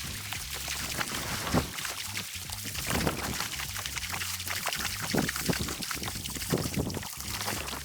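Water splashing and pouring, with a series of sharper splashes scattered through it.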